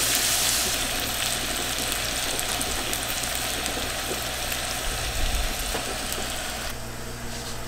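Oxtail stew sizzling and crackling in a pan over a gas burner, a steady fine hiss that eases off near the end. A soft low bump about five seconds in.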